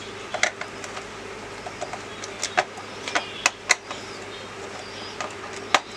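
Irregular plastic clicks and knocks from handling a computer keyboard, about a dozen scattered through, over a faint steady hum.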